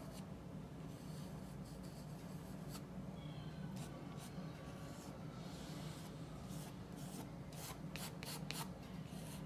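Paintbrush strokes of oil paint on black-gessoed multimedia paper: faint, scratchy brushing, stroke after stroke, over a low steady hum.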